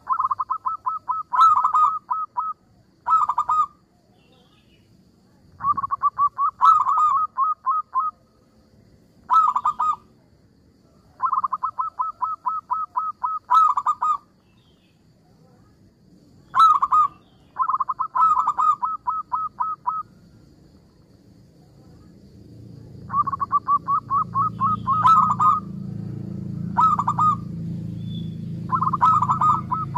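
Zebra dove (perkutut) singing: repeated bursts of rapid staccato cooing notes, each burst a second or two long, with short pauses between. A low background rumble comes up in the last third.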